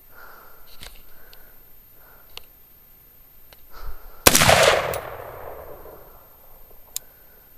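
A single shot from a Bushmaster XM-15 E2S AR-15 rifle in 5.56 NATO/.223, about four seconds in, followed by an echoing tail that fades over about a second and a half.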